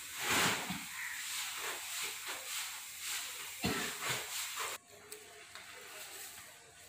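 Wheat grain being poured out of a storage drum into a sack: a steady rustling hiss with a couple of thumps. The hiss cuts off suddenly about five seconds in, leaving a quieter background.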